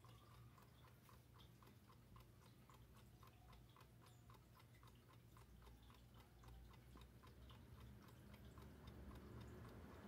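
Rubnick wall clock ticking faintly in a fast, even rhythm, several ticks a second.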